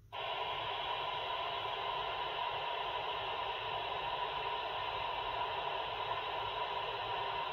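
Steady static hiss from the speaker of an Icom IC-2300H 2-meter FM mobile transceiver, cutting in abruptly just after the start: the receiver is open on the repeater channel with no station answering the call.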